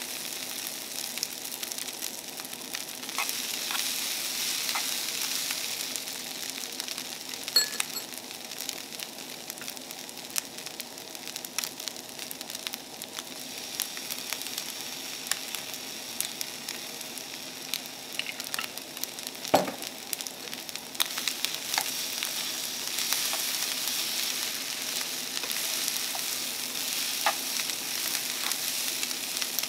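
Fried rice with egg sizzling steadily in a frying pan over a portable gas-canister burner. Chopsticks click and scrape against the pan as the food is stirred, with one sharper knock about two-thirds of the way through.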